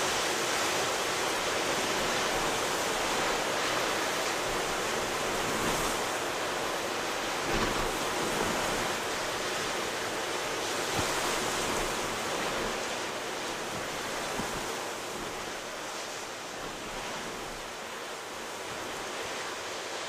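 Rough ocean surf breaking in strong wind: a dense, continuous rush of waves that slowly gets quieter, with a couple of brief thumps in the middle.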